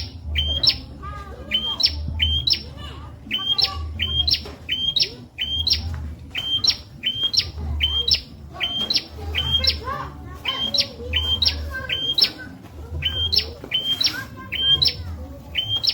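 Prinia (prenjak) calling over and over, a sharp two-part chirp that jumps up in pitch, about three calls every two seconds. A low throb repeats underneath about every two seconds.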